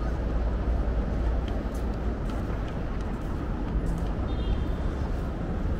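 Steady outdoor background noise: a continuous low rumble with an even hiss above it.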